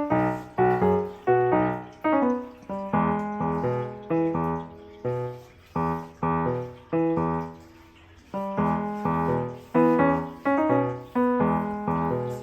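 Background piano music: a melody of struck notes and chords at about two a second, each note dying away.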